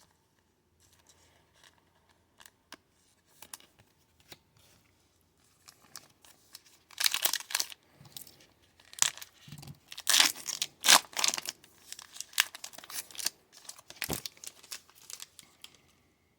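A foil trading-card pack torn open, with crinkling of the wrapper and handling of the cards: a few light clicks at first, then a series of loud, sharp rips and rustles from about seven seconds in.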